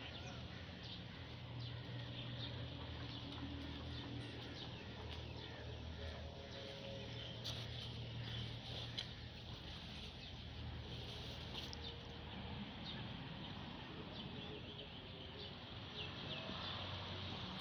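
Small birds chirping over and over, with a low steady hum underneath.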